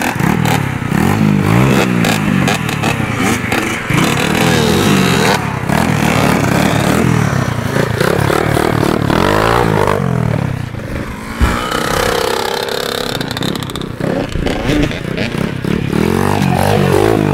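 Several 85cc two-stroke dirt bikes (Yamaha YZ85 and Kawasaki KX85) revving hard, their pitch climbing and dropping again and again as they accelerate and change gear. A single thump comes about eleven seconds in.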